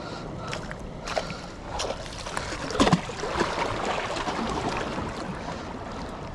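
Water lapping and splashing with wind on the microphone, with scattered knocks and one loud splash or knock just under three seconds in.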